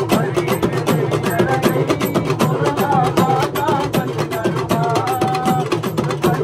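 Live festival drumming on barrel drums: a fast, dense run of strikes. A few held high notes sound over the drums in the middle.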